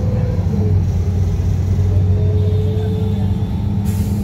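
Metro bus running along the road, heard from inside the cabin: a steady low engine drone with a constant hum. A short hiss comes near the end.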